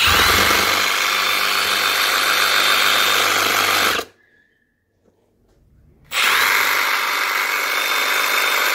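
Milwaukee M18 Fuel Sawzall reciprocating saw run at full speed with no load, freshly cleaned and re-greased, as a test run. It runs for about four seconds, cuts off, and starts again about two seconds later, a whine rising at each start.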